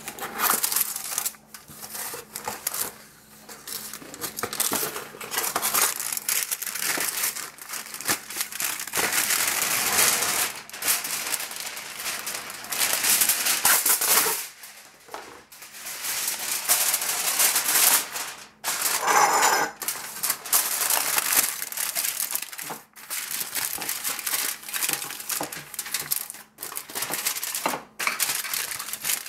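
Aluminium foil crinkling and crumpling in irregular handfuls as it is handled and pressed into a glass baking dish, with one brief squeak about two-thirds of the way in.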